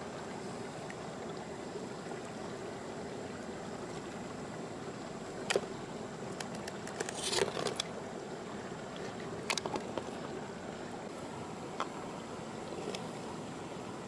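Steady rush of a shallow stream, with a few sharp clicks and wet handling noises from opened freshwater mussel shells and flesh being worked by hand. There is a short cluster of clicks about seven seconds in.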